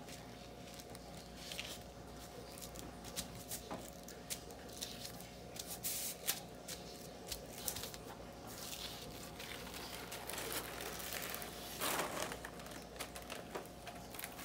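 A sheet of paper being handled and smoothed by hand over a rhinestone template: faint rustling and rubbing, with scattered light clicks and taps.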